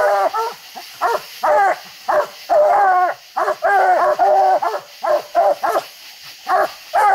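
Several Walker coonhounds bark treed against a tree trunk, a fast run of loud pitched barks with some longer drawn-out bawls, overlapping at times. This is their tree bark, signalling a raccoon treed above them.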